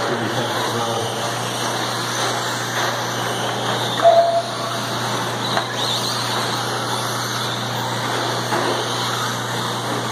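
Radio-controlled cars racing on a dirt track, a steady mix of motor and tyre noise. A short tone sounds about four seconds in.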